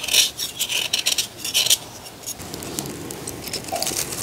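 A steel knife blade shaving thin flakes off a block of jaggery: a quick series of short scraping strokes, about three a second, which stops about two seconds in and leaves only a faint, softer rustle.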